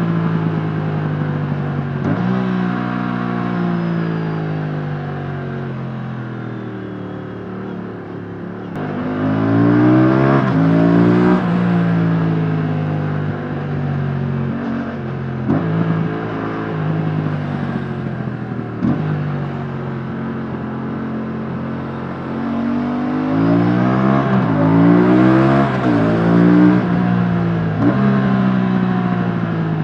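Aprilia RS 457's 457cc parallel-twin engine on its stock exhaust, heard onboard while riding. The revs sag slowly, then climb and drop in quick steps through gear changes about ten seconds in, settle, and climb through the gears again near the end.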